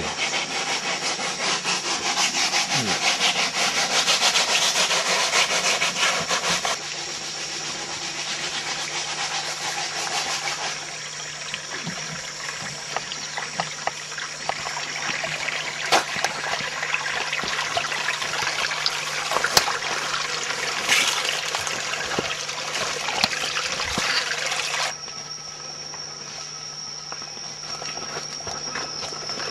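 Tropical rainforest ambience dominated by a dense insect chorus: a steady high whine over a fast, rasping pulse. The texture shifts abruptly about a quarter of the way in and again near the end.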